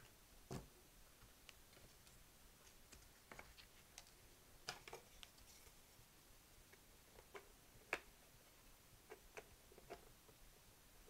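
Faint, scattered clicks and light taps of small parts being handled as the front faceplate of a Sony TC-120 cassette recorder is fitted against its chassis, the loudest tap about eight seconds in.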